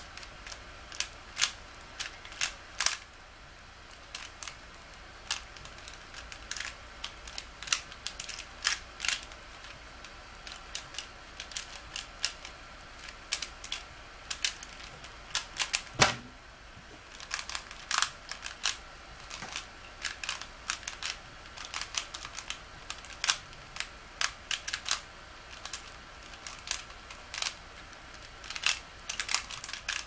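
3x3 Rubik's cube being turned in quick, irregular clicking snaps of its layers. About halfway through a single louder knock stands out as a hand slaps the laptop key to stop the solve timer.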